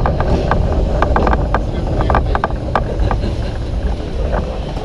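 Vintage open-sided Santa Teresa tram running on its track, heard from on board: a low rumble with irregular clattering and rattling of the wheels and the wooden car. It grows a little quieter near the end as the tram slows.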